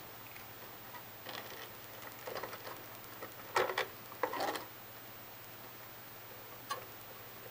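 An IDE ribbon cable and its plastic connector being handled and pushed onto a header inside a desktop PC: several short plastic scrapes and light clicks, the loudest in the middle, over a faint steady hum.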